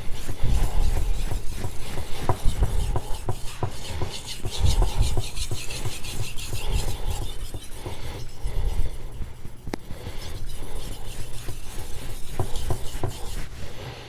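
Swedish carbon steel knife blade being stroked back and forth on a wet sharpening stone: a repeated scraping rub, stroke after stroke.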